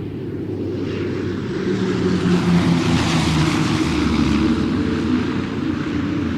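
Airplane engines droning in flight as the aircraft passes. A rushing sound swells to its loudest about three seconds in and then eases off, over a steady low engine hum.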